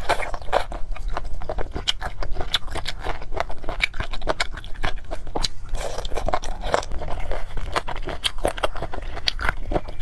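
Close-miked mouth sounds of someone chewing spicy fried noodles and chicken feet: a steady stream of small wet clicks and crunches.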